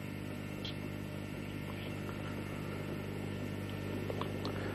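Steady low electrical hum, with a few faint light clicks of folded foil models being handled.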